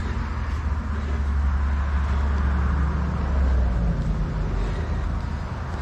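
A passing road vehicle: a low engine rumble that swells over the first few seconds and then eases off, over steady outdoor background noise.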